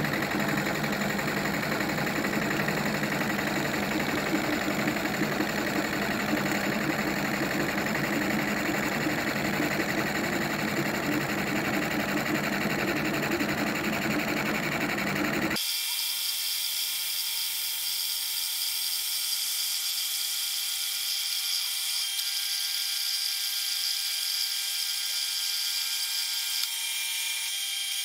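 A 36-grit bowl grinding disc spinning in a machine spindle and grinding across the face of a metal block, making a steady, loud grinding noise. About halfway through it changes abruptly to a thinner, higher whine with the low rumble gone.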